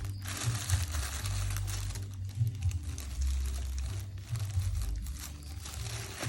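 Thin plastic bag crinkling and rustling in irregular surges as a cat moves around inside it, with a low rumble underneath.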